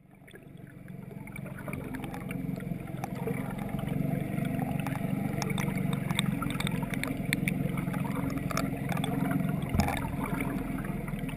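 Underwater sound of a bait being trolled behind a boat: a steady low drone of water rushing and a boat motor, with scattered clicks and gurgles. It fades in over the first couple of seconds.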